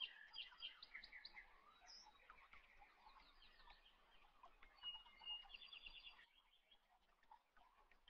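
Faint birdsong: many short chirps and quick trills from small birds, thinning out for a moment about three quarters of the way through.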